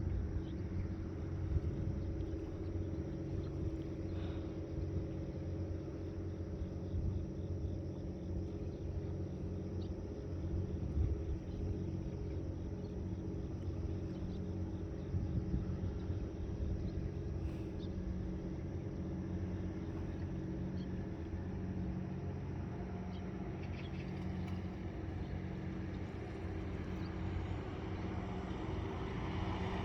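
An engine running steadily, a low unchanging hum with a rumble underneath and a few faint ticks.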